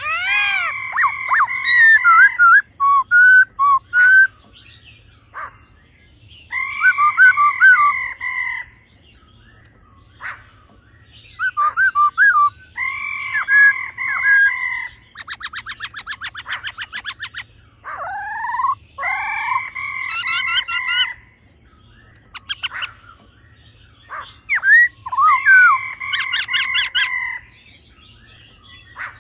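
Black-throated laughingthrush song: loud, rich whistled phrases a few seconds long, repeated with short pauses. Partway through comes a fast dry rattling churr lasting about two and a half seconds, the female's 'ro' call.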